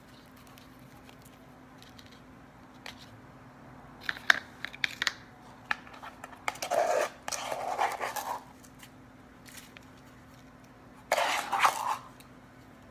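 A plastic measuring cup scooping icy shaved-wine slush out of a plastic bowl, with crunchy scraping and a few light knocks of plastic on plastic. There are scattered knocks about a third of the way in, the scraping comes in short bursts about halfway through, and again near the end.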